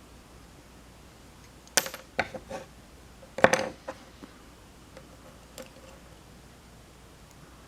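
Sharp metallic clicks and clatter as the spring-loaded cap of a 1935 Ford door handle is pried off and the loose parts are handled: one cluster about two seconds in, a louder one about three and a half seconds in, then a couple of faint ticks.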